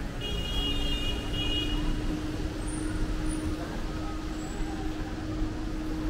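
City street ambience: a steady traffic rumble with a low, even hum. A brief high-pitched whine sounds in the first second and a half.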